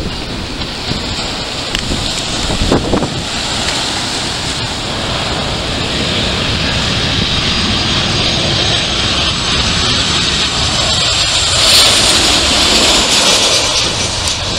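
Jet airliner on low final approach. Its engine noise builds steadily as it comes in and is loudest about twelve seconds in as it passes close overhead, with a high whine on top. Wind buffets the microphone.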